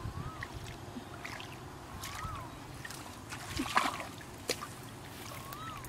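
Hands sloshing and splashing in shallow muddy water, with the loudest splash a little under four seconds in. A short rising-and-falling whistle repeats about every two seconds, three times.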